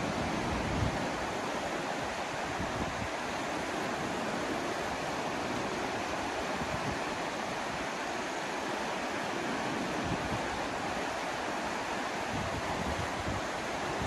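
The Ganges, a swift Himalayan mountain river, rushing over a shallow stony bed: a steady, even rush of water. Low gusts of wind buffet the microphone, strongest near the start and the end.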